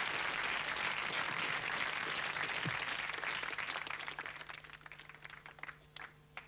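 Studio audience applauding; the clapping thins out and dies away over the last couple of seconds, ending in a few scattered claps.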